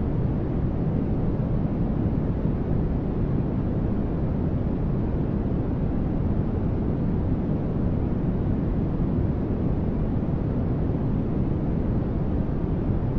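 A continuous noise track sold as white noise for sleep: a steady, unchanging static hiss, deep rather than bright, with its weight in the low end.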